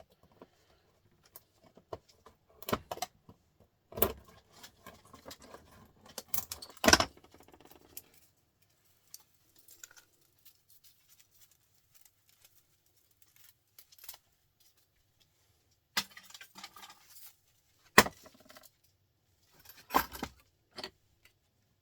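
Scattered metallic clinks, knocks and short rattles as small printer-motor parts (steel casing, brass and copper pieces) are handled and pried apart. The loudest knock comes about a third of the way in, followed by a quiet stretch and a few more knocks near the end.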